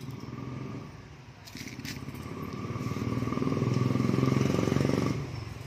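A motor vehicle's engine hum that grows louder over a few seconds, then cuts off suddenly near the end.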